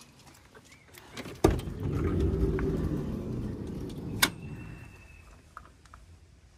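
Cargo van's side sliding door unlatched with a click and rolled open along its track, a rumbling slide of about three seconds that ends in a sharp clunk as the door reaches the end of its travel.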